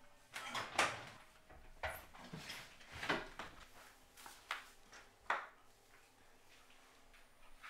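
Footsteps coming down a wooden staircase: about eight irregular thuds over the first five seconds, then quiet.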